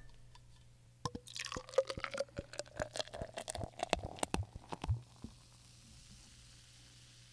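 Liquid poured into a glass, with small splashes and ticks over a tone that rises in pitch as the glass fills. It stops about five seconds in.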